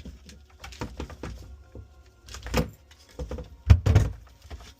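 A series of knocks, clicks and clatters, with the loudest thumps about two and a half seconds in and again near the end.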